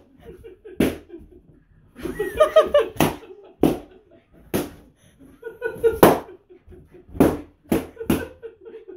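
Rubber party balloons bursting one after another as a West Highland white terrier bites into them: about nine sharp pops, coming faster near the end. A person laughs about two seconds in.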